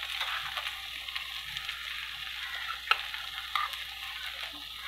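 Onion-tomato masala sizzling steadily in hot oil in a kadai, with a couple of short light clicks about three seconds in.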